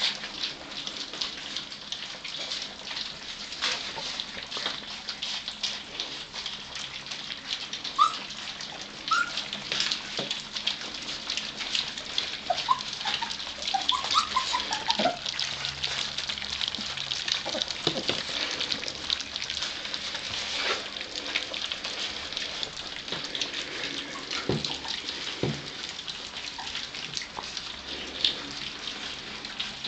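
A litter of Gordon setter puppies lapping and smacking at soft food from a shared dish, a steady wet crackle as they eat their first solid food. A few short high whimpers come through, a cluster of them about halfway through.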